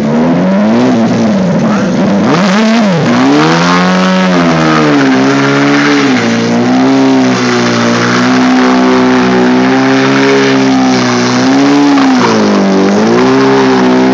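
Suzuki stunt motorcycle's engine held at high revs during a burnout, the rear tyre spinning and squealing on the asphalt. The revs climb steeply about three seconds in, then stay high with a wavering pitch and dip briefly near the end.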